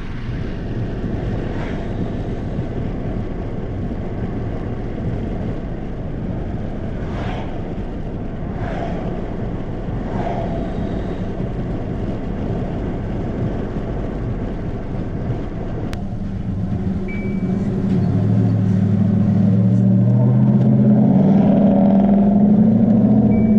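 Car driving with steady road noise; about two-thirds of the way through the engine note rises and grows louder as the car speeds up. A few short, high electronic beeps sound once partway through and again near the end.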